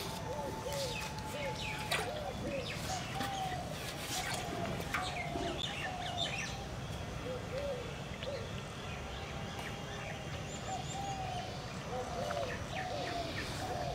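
Birds calling: runs of short, repeated mid-pitched notes, with higher chirps over a steady low background noise.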